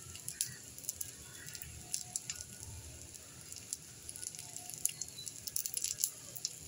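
Pumpkin-leaf parcels frying in a non-stick pan: a steady sizzle with frequent sharp crackles and pops, which come thicker near the end.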